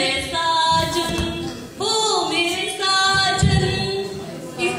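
A voice singing long held notes that bend in pitch. Low thuds come about a second in and again about three and a half seconds in.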